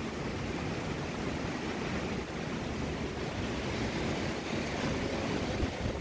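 Strong gusty wind ahead of a rainstorm rushing through the trees, a steady noisy rush with wind buffeting the microphone.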